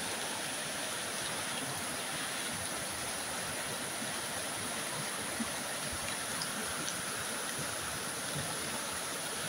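Flood-swollen brook rushing and splashing in a steady torrent of floodwater.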